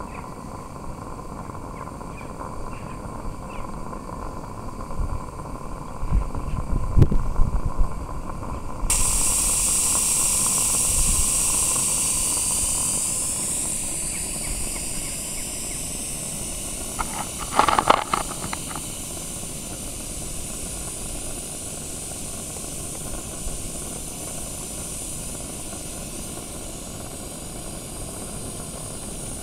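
Live steam Shay model locomotive letting off steam: a loud hiss starts suddenly about nine seconds in and slowly dies away. A few low thumps come before it, and a short burst of higher tones comes in the middle.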